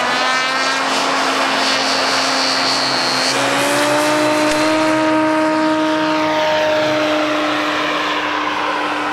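Engine of a radio-controlled model tow plane running at full throttle for an aerotow take-off. It gives a loud, steady drone whose pitch rises a little about three and a half seconds in as the plane speeds up.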